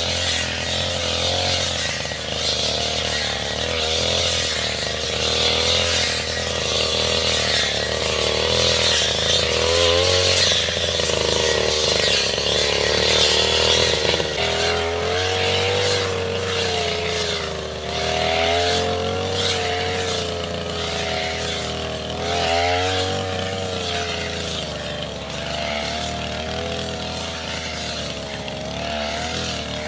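Backpack brush cutter with a circular blade running at high revs while cutting tall grass. Its engine pitch wavers up and down as the blade bites into the grass.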